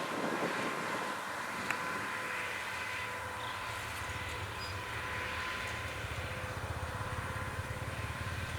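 Kubota M6040SU tractor's diesel engine running steadily under plowing work, with a low rumble that strengthens about halfway through.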